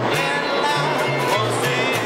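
Acoustic guitar strummed with alternating bass notes, under a kazoo melody.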